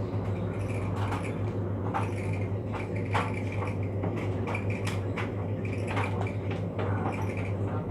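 Rainbow slime being squished and played with by hand, making irregular sticky clicks and pops over a steady low hum.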